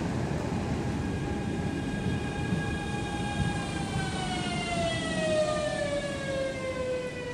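Electric passenger train slowing into a station. Wheel-on-rail rumble runs throughout, with a whine that sets in about a second in and falls steadily in pitch through the second half as the train brakes toward a stop.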